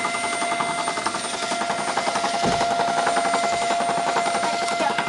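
Electric dough machine running after repair: its motor and reduction gearbox give a steady whine over a rapid, even mechanical pulsing, the machine working normally.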